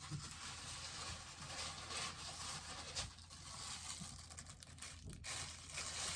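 Packaging rustling and crinkling in the hands as a bobblehead is unwrapped and lifted out of its box, a continuous run of small irregular crackles.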